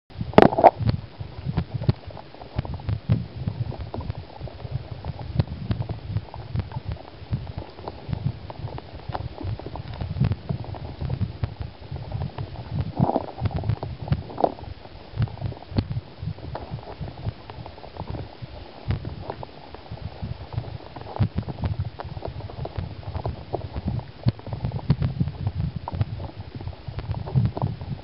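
Fast-flowing stream water heard from underwater: an irregular, muffled low rumble and gurgle with scattered small clicks. It starts abruptly with a sharp knock.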